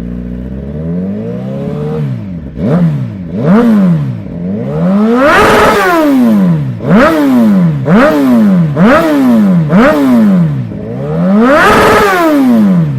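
Suzuki GSX-R1000 inline-four through a CS Racing aftermarket exhaust, idling and then revved in a series of quick throttle blips, two of them held higher and longer, each rising and falling back toward idle.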